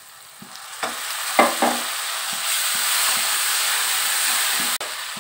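Water added to hot fried onion-and-spice paste in a wok, sizzling loudly as a steel spatula stirs it, with a few scrapes of the spatula. The sizzle builds about a second in, holds steady and stops abruptly near the end.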